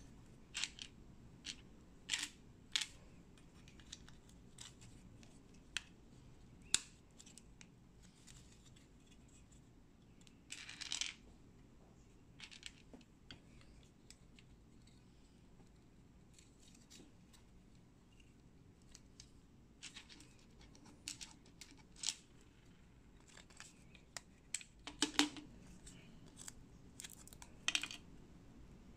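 Small Lego-compatible plastic bricks clicking as they are pressed together and handled, with scattered sharp clicks and a few short rattles, the longest around eleven and twenty-five seconds in.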